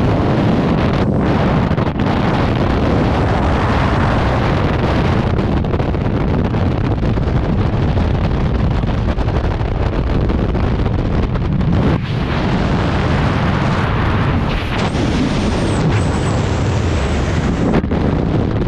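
Steady freefall wind rushing over and buffeting a skydiver's helmet-camera microphone.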